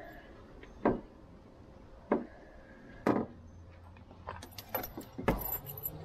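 Handling noises: three separate knocks about a second apart, then a quick run of clicks and metallic jingling near the end.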